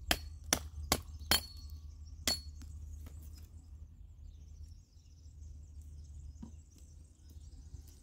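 Bushcraft knife, a Nieto Nessmuk, striking wood: four quick sharp blows about two every second, then a fifth about a second later, some leaving a brief metallic ring.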